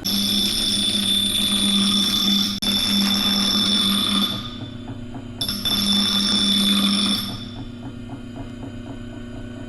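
An electric grinder sharpening the edge of a rusty axe head, running in two bursts: one of about four seconds, then a shorter one of about two seconds.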